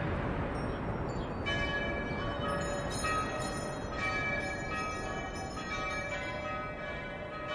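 Church bells ringing, several bells struck again and again with their tones overlapping and hanging on, over a steady low rush.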